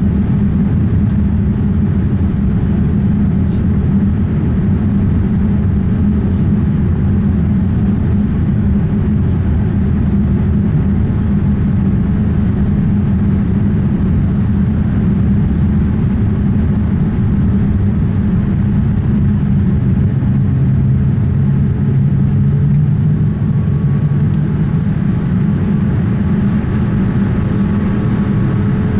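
Steady in-cabin noise of a Boeing 787-9 in flight, with its Rolls-Royce Trent 1000 engines and airflow making a loud, low rumble and an even hum. A second, lower hum comes in for a few seconds about twenty seconds in.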